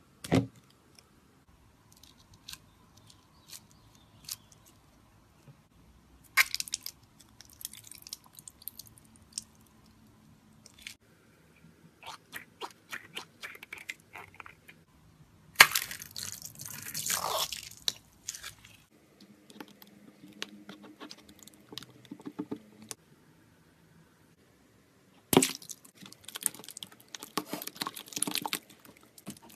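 Scissors cutting open balloon stress balls filled with clear glue and food dye, and the filling being squeezed out into a bowl and worked as slime, in several separate bursts with quiet gaps between.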